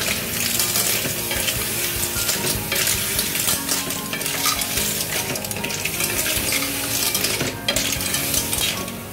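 Clams in their shells being stir-fried in a metal wok: steady sizzling with the shells clattering and scraping against the pan as they are stirred and tossed.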